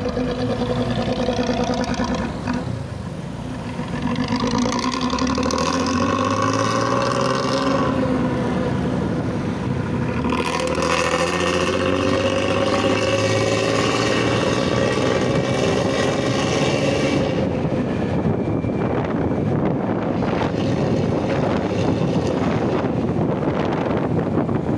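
Intercity bus with a throaty 'ngorok' (snoring) exhaust accelerating: the engine note climbs in pitch, drops at a gear change about ten seconds in, and climbs again before settling into a rough, steady drone.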